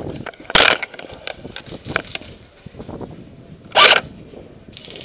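Light clicking and rattling of the rifle's sling swivel right beside the gun-cam microphone, with two short, loud bursts about three seconds apart.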